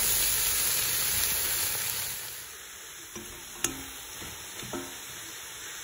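Shredded white cabbage sizzling in a hot pot of fried onions and red peppers as it is stirred. The sizzle is loud at first and drops to a quieter hiss about two seconds in, with a single sharp click later on.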